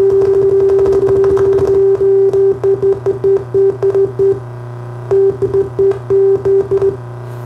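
A steady test tone from a tone generator, heard through an FM receiver from a low-power stereo FM transmitter, runs unbroken for a couple of seconds, then cuts in and out repeatedly, drops out briefly midway and stops near the end, as the input plug is handled. A steady hum underlies it, which comes from the transmitter having no ground.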